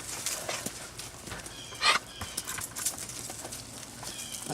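Young puppies whimpering with faint high squeaks, and one louder short cry about two seconds in, over light scratching and shuffling clicks.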